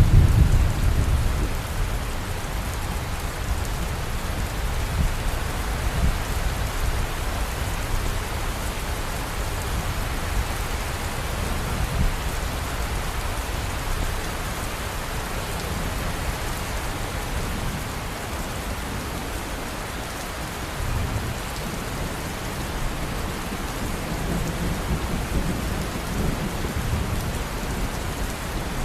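Steady rain falling, with low thunder rumbling: a rumble fading away at the start and more distant rumbles near the end.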